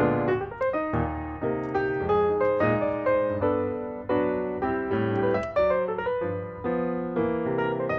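Background piano music: a melody with chords, the notes struck about twice a second and each fading away.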